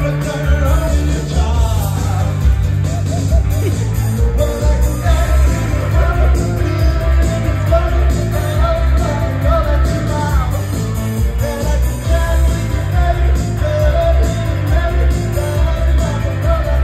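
Live, amplified pop-rock song: a singer singing into a microphone over a heavy, pulsing bass.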